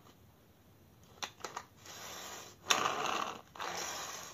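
Plastic toy car and its wired remote being handled: a few sharp clicks, then a short stretch of rattling, scraping noise with a louder click in the middle.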